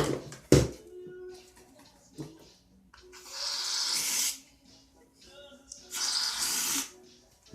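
Two sharp knocks near the start, then an aerosol can of shaving cream spraying in two hissing bursts of about a second each, three seconds in and again six seconds in.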